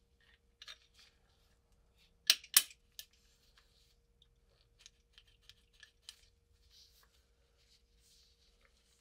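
Metal parts of a WW2 British spike bayonet's socket and locking catch being fitted together by gloved hands: two sharp clicks close together about two and a half seconds in, a softer one just after, then light metallic ticks and glove rustles.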